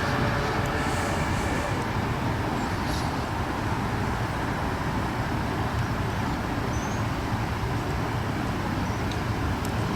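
Steady road traffic noise: vehicles running along a street, a low even rumble with no siren.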